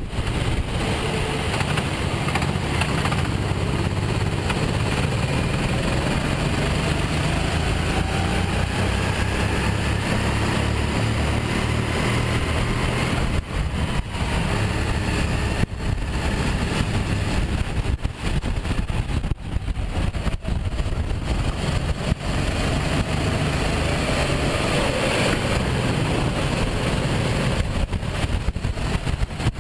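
Onboard sound of a Sodi RT8 rental kart's single-cylinder four-stroke engine running hard, its pitch rising and falling as the driver accelerates and lifts through the corners, with a few brief drops in level. Other karts' engines run close around it.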